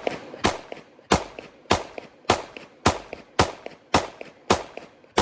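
Shadow Systems MR920 9mm pistol, uncompensated, fired in a steady string of about nine evenly spaced shots, close to two a second.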